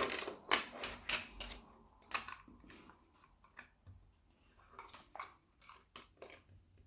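Small plastic LEGO pieces clicking and clattering as they are picked through and handled: a quick run of sharp clicks in the first couple of seconds, then scattered single clicks.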